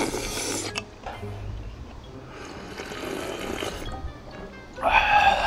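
A person slurping hot dumpling-soup broth in three noisy bursts, the last near the end the loudest, over background music.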